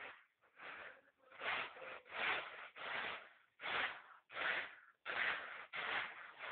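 Grain rattling and swishing on a flat winnowing tray, tossed in a steady rhythm of a little more than one toss a second.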